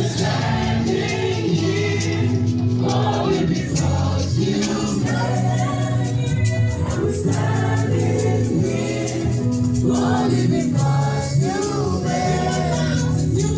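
A choir singing gospel praise music over a steady beat with bass and drums.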